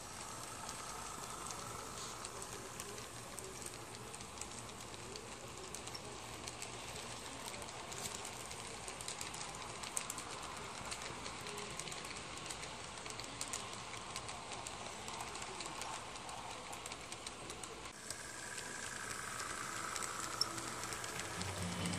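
HO scale model freight train running on the layout track: a steady whir from the locomotive motors and rolling cars, with many light clicks of the metal wheels on the rails.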